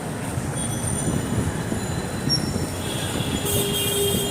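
Steady low rumble of a vehicle in motion, with thin high squealing tones above it and a short steady tone near the end.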